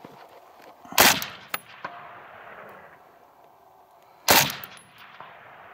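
Two rifle shots about three seconds apart, each a sharp crack followed by a rolling echo.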